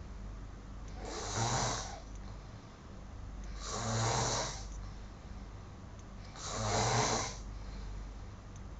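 A man snoring heavily in his sleep: three snores, about one every two and a half to three seconds, each a roughly one-second breath with a low buzzing drone.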